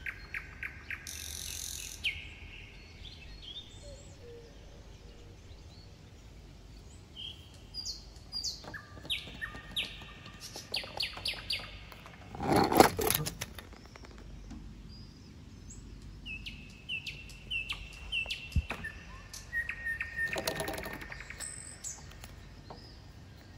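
Small songbirds chirping and whistling on and off. A brief louder noise comes a little past halfway, and a single sharp click a few seconds later.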